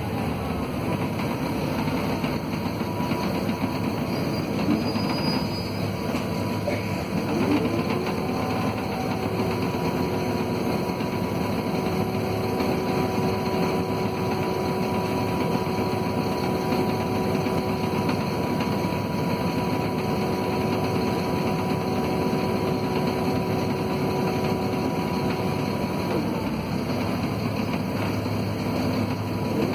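Volvo B7RLE city bus heard from inside the cabin, its Volvo D7C diesel engine and ZF Ecomat automatic gearbox running under way. A steady tone glides up about eight seconds in, holds, and falls away near the end.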